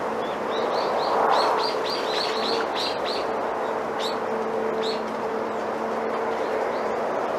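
Wind rustling through bamboo leaves, a steady rushing, with a small bird chirping in a quick run of short calls over the first few seconds and a few more around four and five seconds in. A faint steady hum runs underneath.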